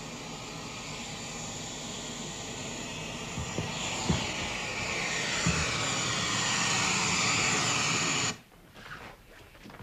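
Jet aircraft flying over: a rushing roar that swells steadily, with a falling, sweeping tone in its upper part, then cuts off abruptly about eight seconds in. A few soft low thuds sound under it midway.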